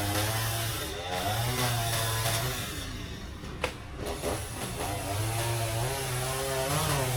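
Chainsaw running at high revs, cutting into a coconut trunk; the engine eases off about halfway through with a single sharp click, then revs up again.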